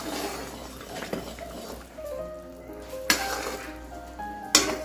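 Background music with steady held notes, and a metal spoon knocking twice against a metal cooking pan, about three seconds in and near the end.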